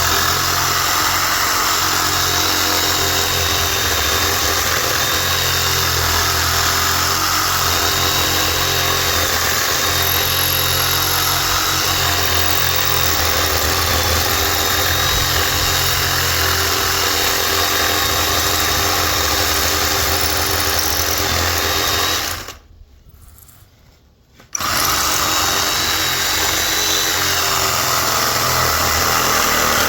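A handheld power tool running steadily, switched off for about two seconds about two-thirds of the way in and then started again.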